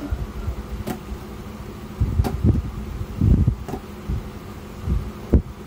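Kitchen knife cutting bird's eye chilies on a plastic cutting board: irregular dull knocks of the blade through the chilies onto the board, with about four sharper clicks among them.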